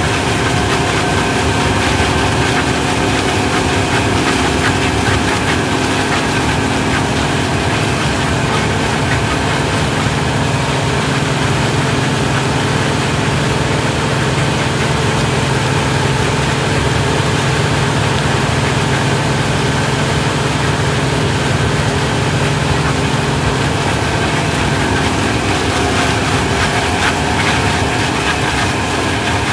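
Self-propelled sweet corn harvester running steadily as it works: a constant low engine hum with several steady whining tones from the machinery above it.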